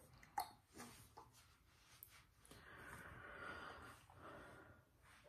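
Near silence: room tone with a few faint clicks and a soft, quiet rustle in the middle.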